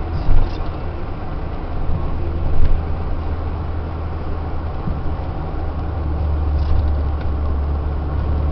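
Peugeot 205 1.4-litre, 70 hp four-cylinder engine running steadily on the move, heard from inside the cabin as a low drone with road noise. Two brief knocks come within the first three seconds.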